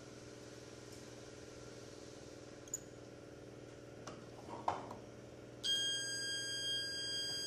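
A few small clicks of clip leads and metal being handled, then, about five and a half seconds in, a magneto-timing buzz box starts sounding a steady high-pitched tone. The tone is its signal across the magneto's breaker points, used to find the exact moment the points open.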